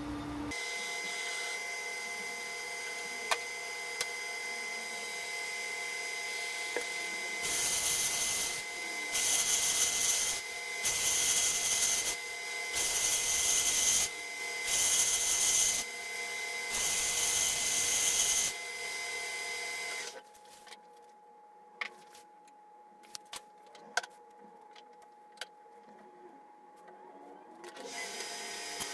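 Metal-turning lathe running with a steady whine while the cutting tool bites into a gunmetal bar in about six short bursts of harsh cutting noise. About 20 seconds in the lathe stops, leaving only a few small clicks until a sound starts up again near the end.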